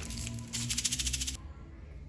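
Packaging crinkling and rustling as it is handled during an unboxing, in one burst over about the first second and a half, with background music.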